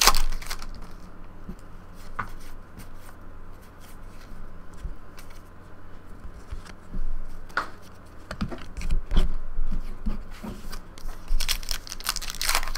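Trading card pack wrapper being crinkled and torn open by hand, with cards being handled. Crinkling comes at the start, only a few scattered crackles through the middle, then denser crinkling and tearing builds toward the end.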